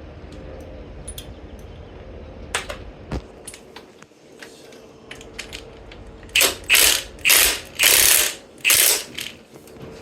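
A few metallic clicks, then an impact wrench hammering in about five short bursts on the engine sprocket nut of an Ironhead Sportster's primary drive, trying to break it loose.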